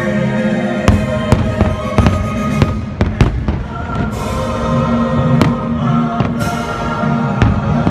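Fireworks bursting in quick succession, many sharp bangs and booms, over the show's orchestral soundtrack music playing underneath.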